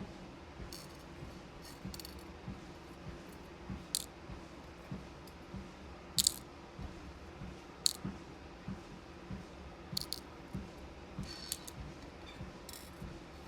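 Beads and small plastic bead containers being handled, giving sharp clicks every second or two, over soft, regular footfalls on a walking-pad treadmill with its low motor hum.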